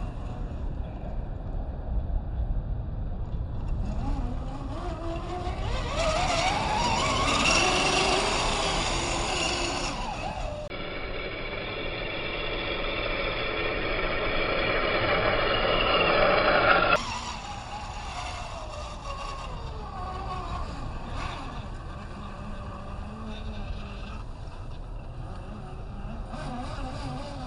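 Scale RC crawler's electric motor and geared drivetrain whining, the pitch rising and falling as the throttle is worked while it drives over rough ground.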